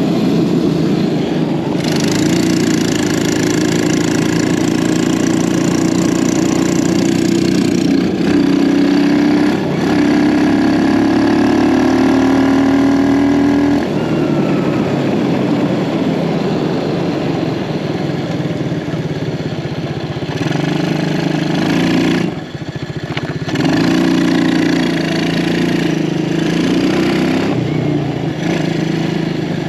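Small single-cylinder four-stroke off-road engine running hard while being ridden, its pitch climbing repeatedly under throttle in the first half. It eases off about halfway, dips briefly about three quarters of the way through, then picks up and runs steadily again.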